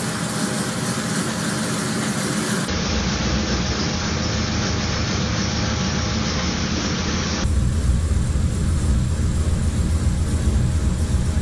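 Hot rod's flathead V8 engine idling steadily. It is heard through three phone recordings in turn: thin and hissy at first, duller from about three seconds in, then with much fuller bass from about seven seconds in.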